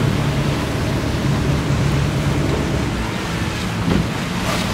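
Wind buffeting the microphone over the steady hum of a motorboat's engine and rushing water, as the boat moves.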